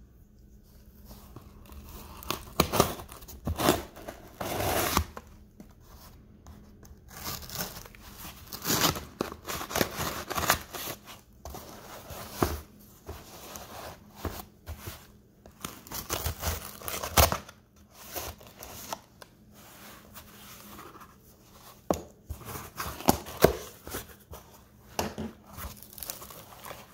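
Packing tape being slit and torn along the seam of a cardboard shipping box, with scraping and crinkling in irregular bursts; the cardboard flaps are pulled open near the end.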